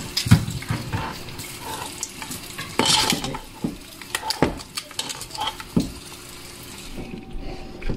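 Kitchen utensils and dishes clinking, scraping and knocking in an irregular series, loudest about three seconds in, as food is handled and stirred.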